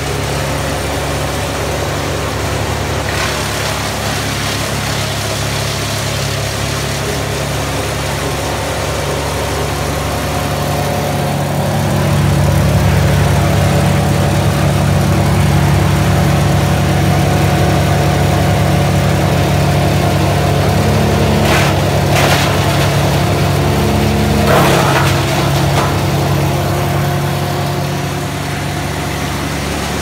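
Vermeer BC1000 12-inch woodchipper running steadily, its engine drone growing louder about twelve seconds in. A few sharp cracks come a little after twenty seconds as small branches go through the chipper.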